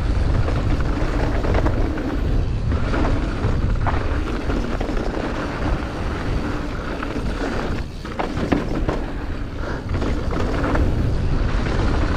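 Wind buffeting the microphone and a mountain bike's tyres rolling over a dirt trail at speed. A few knocks and rattles from the bike can be heard, the sharpest about eight and a half seconds in.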